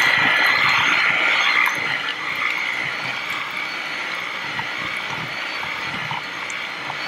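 Electric hand mixer running steadily, its beaters churning peanut butter and eggs into a thick batter; the motor's whine drops a little in loudness about two seconds in.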